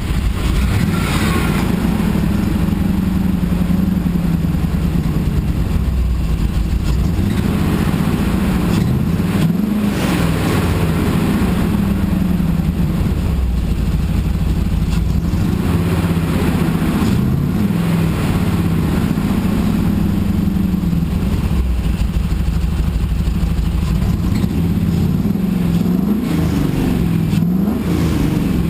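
GM 6.0-litre LQ4 V8 running unevenly and noisily, its pitch rising and falling briefly a few times. The owner suspects a spun bearing, having found metal in the oil.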